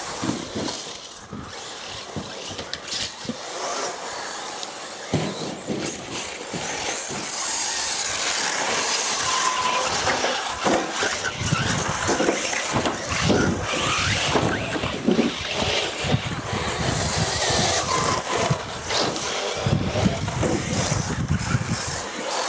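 Radio-controlled model race cars running around the track, their small motors whining and the sound swelling as they come closer, with short squeals and buzzes as they pass.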